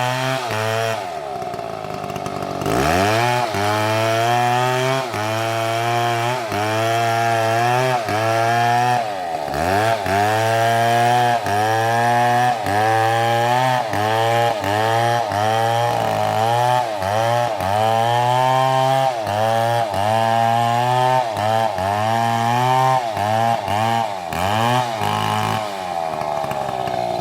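Two-stroke chainsaw running at high revs, with the engine pitch dropping low about a second in and then revving back up. After that the pitch sags and recovers about once a second as the chain bites into wood and the engine bogs under cutting load.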